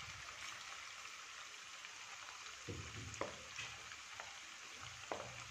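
Butter boiling down into ghee in a kadhai: a faint steady sizzle with scattered small pops. Near the middle and again near the end, a wooden spatula stirs and knocks softly against the pan a few times. This is the late cooking stage, with the milk solids settling and the ghee nearly ready.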